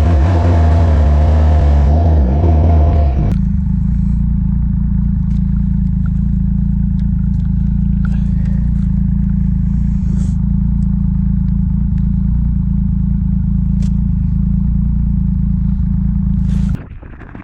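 An engine running, louder and busier for the first three seconds, then settling into a steady low drone that cuts off sharply near the end.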